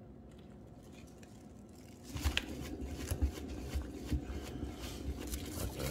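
A hand-spun painting turntable starts spinning about two seconds in, with a low rumble and a rapid, irregular rattle of clicks. The turntable carries a freshly poured acrylic coaster, spun to fling the paint outward.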